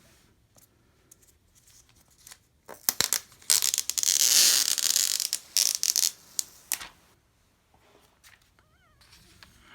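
Plastic shrink-wrap being torn off a sealed iPad Pro box: a few crackles about three seconds in, a loud hissing tear for a second or two, then more sharp crackles. Near the end there is a brief, faint, wavering high cry.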